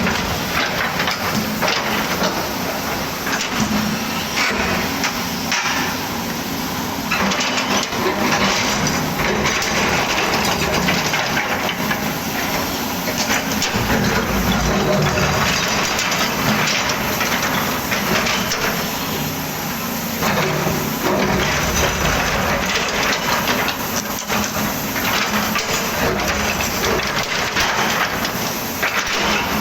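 Volvo excavator at work: its diesel engine running steadily under load, with irregular knocks and crunching as the bucket digs through soil and stones.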